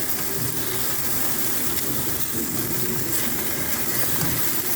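Chicken pieces sizzling on a hot oil-drum jerk pan, a steady hiss, with a couple of faint clicks.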